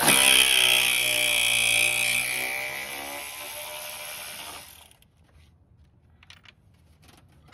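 Cordless electric ratchet running, spinning a 10 mm bolt out of the radiator fan assembly. The motor whine starts suddenly, is loudest for the first couple of seconds, then fades and stops about five seconds in.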